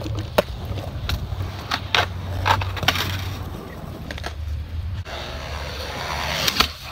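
Skateboard wheels rolling on smooth concrete with a steady low rumble, broken by sharp clacks of the board hitting the ground every second or so.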